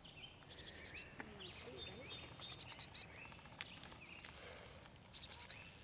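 Fledgling black-capped chickadee calling: three short bursts of rapid high-pitched notes, a couple of seconds apart.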